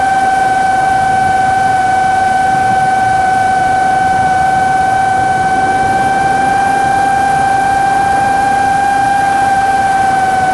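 Steady machine drone with a constant high whine over a rushing noise, unchanging throughout.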